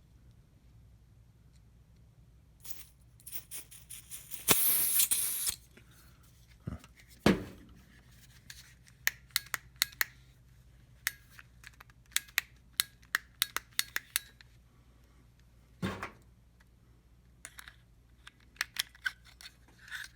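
A short burst of butane hissing out, about a second long, as a refill can is pressed onto the torch's fill valve; the torch is already full, so the gas spits back out. Around it are a knock, a thump and runs of sharp plastic clicks from handling the torch and can.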